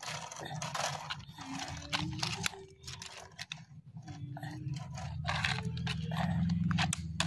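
Gravel and small stones crunching and scraping as a plastic toy excavator and toy dump truck are handled and pushed over loose gravel, in irregular short crackles over a steady low hum.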